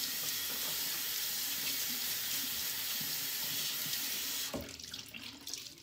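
Bathroom sink tap running warm water into the basin while a makeup removal cloth is wetted under the stream; the tap is shut off suddenly about four and a half seconds in.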